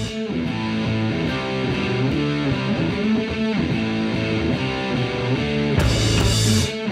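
Outro music with guitar and drums, with a short loud noisy burst near the end.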